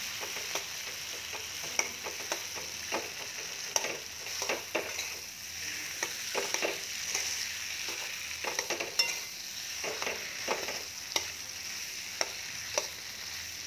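Metal spatula scraping and knocking against a metal kadhai in irregular strokes as boiled potatoes are stirred and mashed into tomato masala, over a steady frying sizzle.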